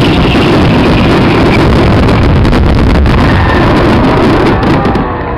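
Finale barrage of aerial fireworks shells and ground fountains bursting in rapid succession, blurring into one continuous loud rumble. Near the end it eases slightly and sharp crackles come through.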